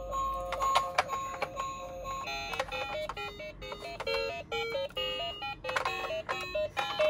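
Electronic beeping tones with regular clicks, changing after about two seconds into a fast, bleepy electronic melody of short stepping notes.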